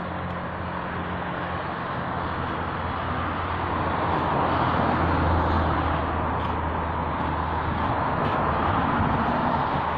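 Steady rumble of a motor vehicle engine with road noise, growing louder about halfway through and again near the end. A few faint clinks of stones being handled sit over it.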